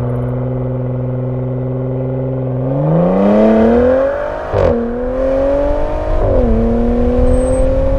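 Car engine holding a steady note, then accelerating hard with its pitch rising, dropping suddenly at two upshifts, about halfway through and again near three-quarters, and climbing again after each.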